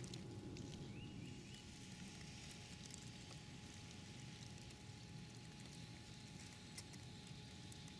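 Quiet woodland ambience: a low steady rumble with a faint steady hum, scattered small ticks, and one brief faint high note about a second in.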